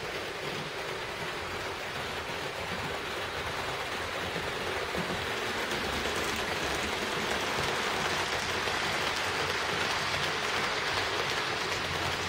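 HO-scale model train running on Roco Geoline track: a steady hissing rumble of wheels and motor that grows louder as the train comes close to the microphone in the second half.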